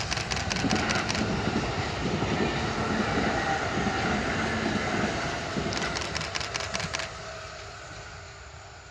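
Kintetsu Urban Liner limited express electric train passing, a steady rumble of wheels on rail. Clusters of wheel clacks come as the train arrives and again about six seconds in as the last cars go by, and the sound fades away after about seven seconds.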